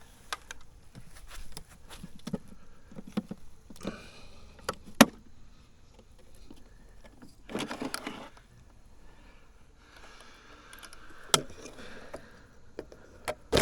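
Plastic clicks and knocks as the Aiper Seagull Pro pool robot is handled and opened to get at the debris it collected, with a sharp click about five seconds in and a short rush of noise near eight seconds.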